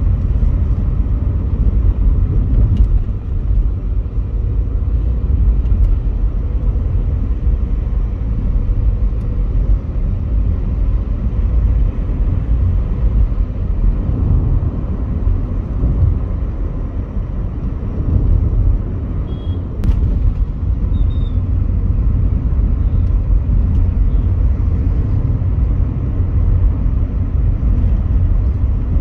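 Steady low rumble of a Volkswagen Polo GT TSI being driven, heard from inside the cabin: engine and tyre noise. A single sharp click comes about two-thirds of the way through.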